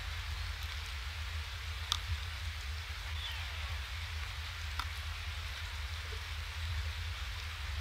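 Steady rain hiss, with a few sharp drops striking the webcam housing and a low rumble underneath. A faint, short falling chirp of a small bird comes a little over three seconds in.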